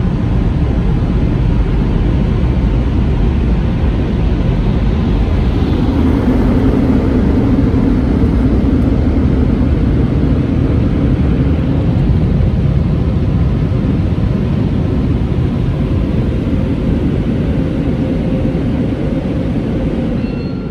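Touchless car-wash dryer blowers blasting air over the car, heard from inside the cabin: a loud, steady rush of air over a deep rumble, with a deeper hum swelling about six seconds in and easing off a few seconds later. The level drops slightly near the end as the drying cycle finishes.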